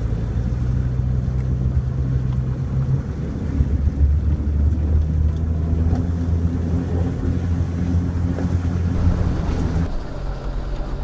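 Jeep Cherokee XJ engine running under load, heard from inside the cab, as the Jeep pulls through a shallow stream crossing and up onto a dirt trail. The engine note drops about three seconds in and then holds steady. Near the end the sound changes abruptly.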